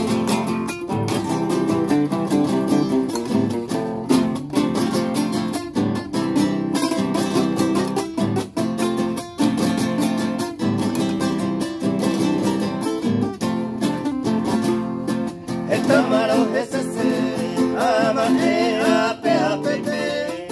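Two acoustic guitars strummed together in a steady rhythm. A man's singing voice joins about three-quarters of the way in.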